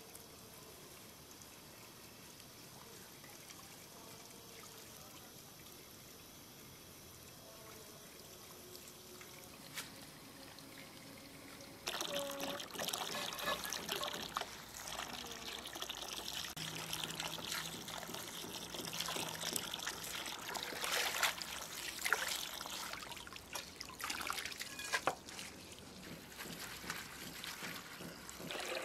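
Water pouring and trickling, starting suddenly about twelve seconds in, with many small clicks and splashes throughout; before that only a faint background.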